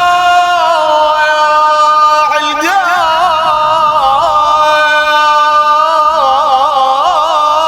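A man's voice chanting an Arabic Husayni lament, drawing out one word into a long held note. The note is steady at first, then from about two and a half seconds in it turns into wavering melismatic ornaments.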